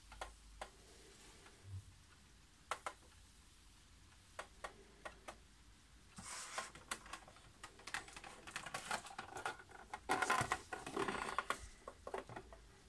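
Plastic wall-clock case being handled and turned over in the hands: irregular clicks and taps, with two spells of rubbing and knocking, the louder one near the end.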